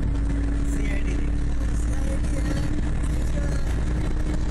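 Steady low rumble of road and engine noise inside a moving car's cabin, with a steady hum over it.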